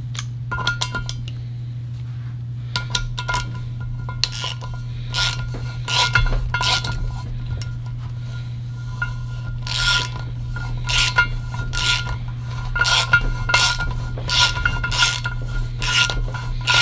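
Hand ratchet clicking in irregular runs of quick strokes as it turns a spark plug thread repair counterbore cutter into the stripped spark plug hole of an aluminium Ford Triton cylinder head, with a steady low hum underneath.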